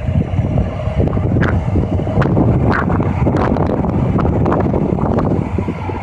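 Heavy wind buffeting on the microphone, with the engine of a Hürlimann Master 165 tractor working under load as it pulls a Rabewerk four-furrow plough. The wind rumble is steady throughout, with a few short crackles.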